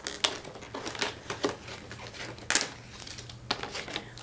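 Crinkling, scraping and rustling of a cardboard retail box being handled and opened by hand: a run of irregular sharp crackles, the loudest about two and a half seconds in.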